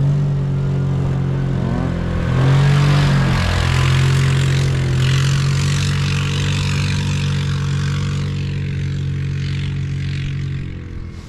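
Off-road vehicle engine running steadily, its revs briefly rising and falling about two to three seconds in, with a broad hiss over it through the middle that fades near the end.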